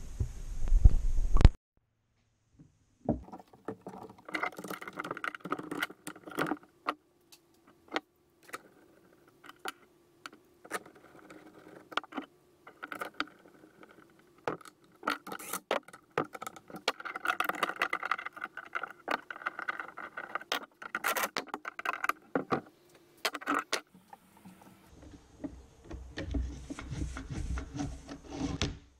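Clicks, rattles and scrapes of hands and tools working on the recoil starter housing of a Stihl TS400 cut-off saw. In the last few seconds there is a low, fuller sound as the new starter rope is pulled out of the recoil.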